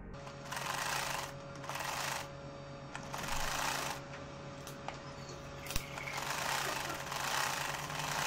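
Sewing machine stitching a seam through cotton fabric in about four short runs, the last and longest starting near the middle, over a steady hum.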